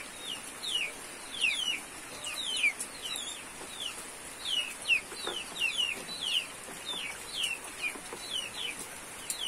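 Chicks peeping over and over: short, high calls that each fall in pitch, two or three a second.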